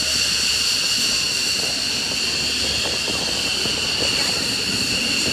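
Jet aircraft engine noise: a steady high-pitched whine over a broad rushing sound.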